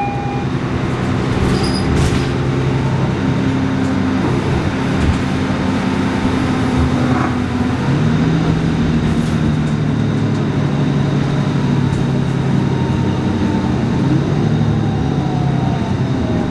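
Interior of a 2017 Nova Bus LFS diesel city bus under way: the diesel engine's steady drone over constant tyre and road noise. The engine note shifts about halfway through as the bus changes speed.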